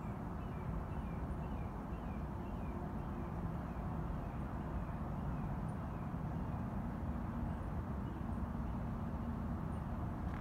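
Steady low rumble of a distant vehicle engine. Over it, a bird repeats short falling chirps, about two or three a second, for the first half or so.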